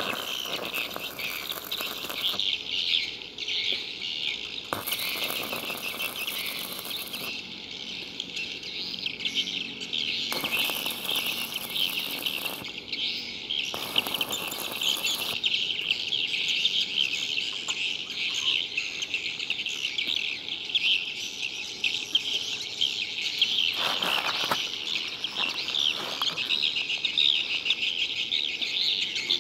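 Electric arc welding on steel reinforcing bars: the arc crackles and sizzles in separate stretches of about two seconds, four times in the first half and once more, briefly, later on. Steady high-pitched chirping goes on behind it throughout.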